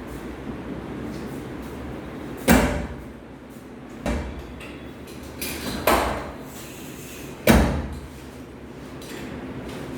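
Four sharp cracks and thuds from a chiropractic adjustment, roughly one every one and a half to two seconds, each dying away quickly.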